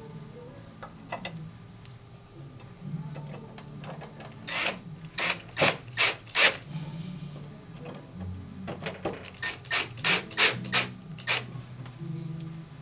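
Screwdriver driving small machine screws through a black metal plate into a metal mounting bracket: two runs of short rasping, grinding strokes, about five then about eight, roughly three a second, one run for each screw.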